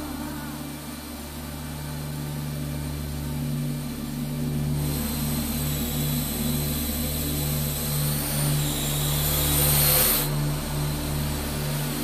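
Quadcopter motors and propellers of a Parrot AR.Drone 2.0 whirring in flight. A high-pitched whine joins about five seconds in, and there is a louder rush of rotor noise around ten seconds in.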